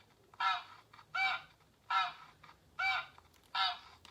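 Goose honking: a series of five short, nasal honks, about one every three-quarters of a second.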